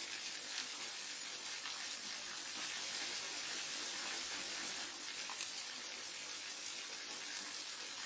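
Falling water from a waterfall, a steady, even rushing with no rhythm or change.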